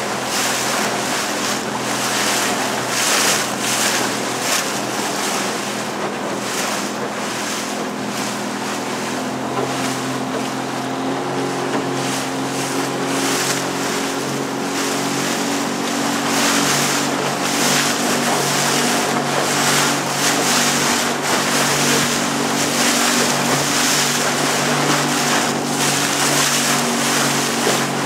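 Small motorboat's engine running steadily under way, with water rushing and splashing past the hull and gusts of wind on the microphone.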